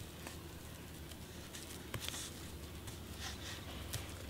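Faint, scattered small clicks and rustles of juniper foliage being cleared by hand, as shoots and needles are pulled from around a branch, over a low steady hum.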